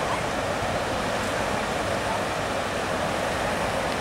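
Barwon River in flood, the water pouring through the Breakwater in a steady, even rush of white water.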